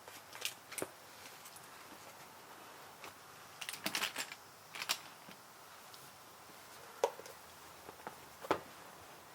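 Computer keyboard keys tapped in short, scattered clicks, a pair near the start, a quick cluster around the middle and single taps later, over a faint steady hiss.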